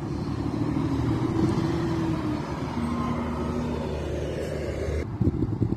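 Double-decker bus driving past, its engine giving a steady hum with a faint tone above it, loudest about a second and a half in. Near the end, wind gusts rumble on the microphone.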